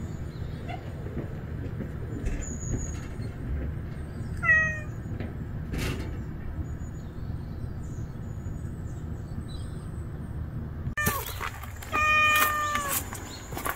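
Calico cat meowing: a short meow about four seconds in, then a loud, longer meow near the end, a cat begging for food. A steady low rumble underlies the first part and stops abruptly about eleven seconds in.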